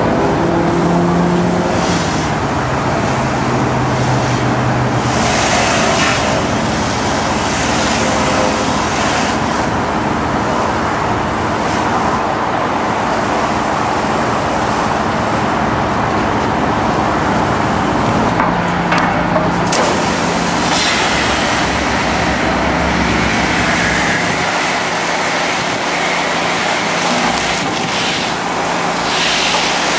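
Pressure washer running steadily while its wand sprays water down into a kitchen exhaust duct: a loud, continuous hiss of spray over a low motor hum.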